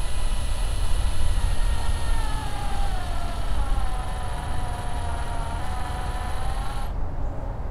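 DeWalt cordless drill running at slow speed, its motor whine easing a little lower in pitch a couple of seconds in as the bit bores down into packed potassium nitrate, dextrose and sulfur propellant. The whine stops abruptly about seven seconds in, over a low rumble.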